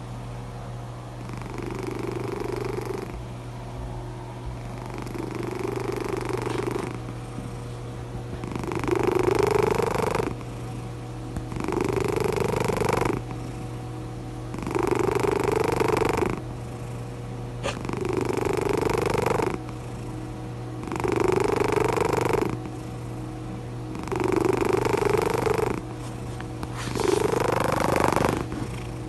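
Sleeping cat snoring in a steady rhythm, a louder breath roughly every three seconds with quieter breaths between.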